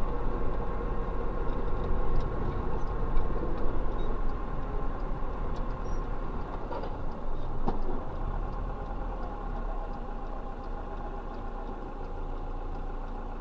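Steady car engine and road noise, with a few faint clicks.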